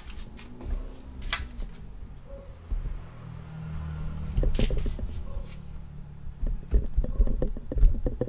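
Handling and movement noise: a low uneven rumble with scattered light knocks and clicks, busiest in the second half.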